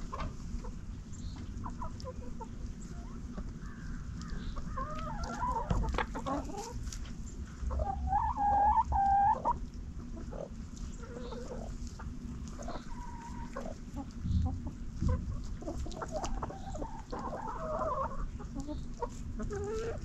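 Chickens clucking and calling in short, scattered calls, with one longer, louder call lasting about a second and a half, about eight seconds in.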